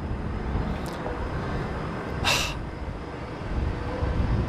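Low, steady outdoor rumble, with a short hiss about two seconds in.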